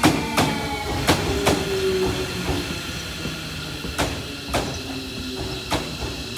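JR Kyushu Series 305 electric train rolling slowly past a platform, its wheels clacking over rail joints in pairs that come further and further apart as it slows. Early on there is a faint whine from its Toshiba IGBT VVVF inverter and permanent-magnet motors, falling in pitch.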